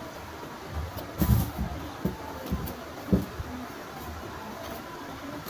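Hands handling and gathering crepe fabric on a table, rustling, with a few soft thumps in the first half.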